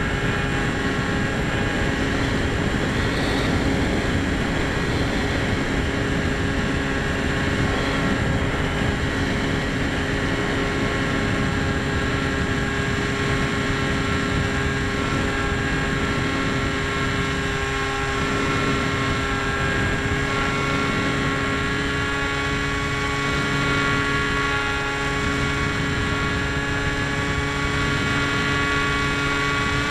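Electric motor and propeller of a small EPP foam FPV airplane in flight, picked up by its onboard camera: a steady whine holding a fairly even pitch, over a low rush of wind across the microphone.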